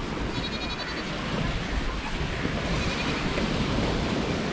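Sea surf washing onto the beach, a steady rushing noise, with a brief faint high-pitched call about half a second in.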